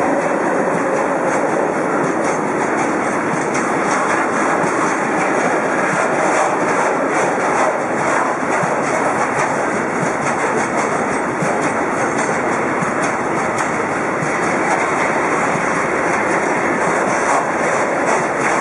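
Freight wagons of a long goods train rolling past at speed: a steady rumble and clatter of steel wheels on the rails, with repeated knocks as the wheel sets run over rail joints.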